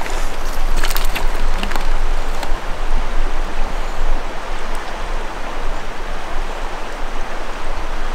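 Shallow river rushing steadily over stones, with a few light clicks in the first two seconds.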